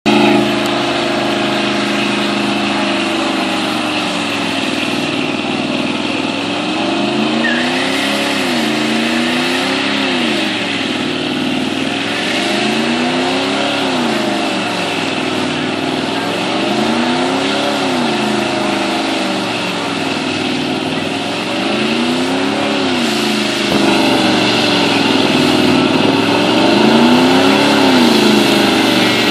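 Chevy Z71 pickup's engine held at high revs during a long burnout, its pitch rising and falling every four or five seconds, over the steady hiss and squeal of the spinning rear tires.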